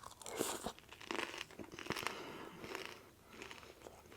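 Close-up chewing of a crunchy fried rolled taco: scattered soft crunches and small mouth clicks.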